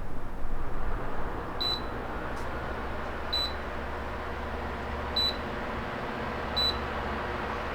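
Plusminuszero Living Fan Z710 electric fan's control beeping four times, short high beeps about a second and a half apart, over the steady whoosh of the fan running.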